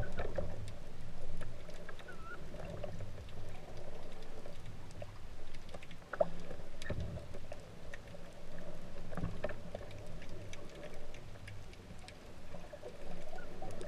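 Muffled underwater sound picked up by a camera in its waterproof housing: water noise with a low rumble and scattered faint clicks.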